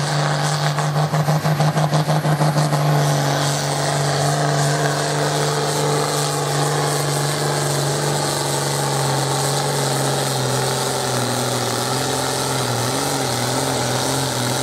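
Ursus pulling tractor's diesel engine running flat out under heavy load as it drags the weight-transfer sled down the track on a full pull. It pulses quickly for the first three seconds or so, then runs steadily at an even pitch.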